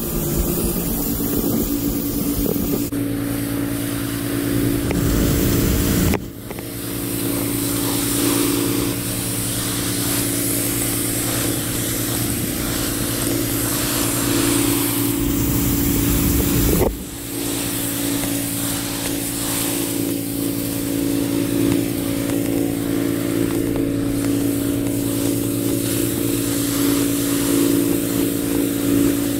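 Pressure washer running steadily, an engine-like drone with the hiss of the wand's high-pressure water spray striking brick pavers. The sound dips and picks up again twice.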